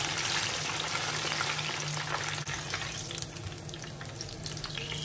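Ripe plantain slices deep-frying in hot oil: a steady sizzle flecked with small crackles, easing slightly over the few seconds, as a wire skimmer moves among the pieces.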